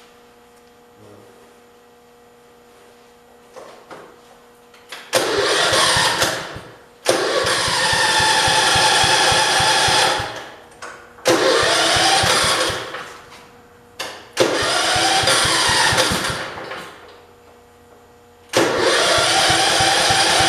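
1968 John Deere 110 garden tractor's engine, cold after standing a long time, firing and running for a few seconds then dying away, four times over, before it catches about eighteen seconds in and keeps running steadily.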